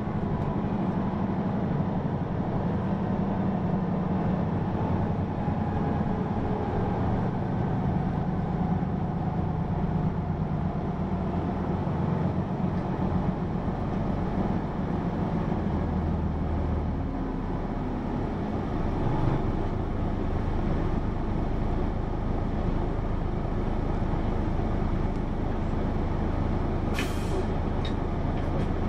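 Hino PA-KR234J1 route bus's diesel engine running under way, heard from inside the cabin with road noise, its pitch shifting as the bus changes speed. A short sharp air hiss comes near the end.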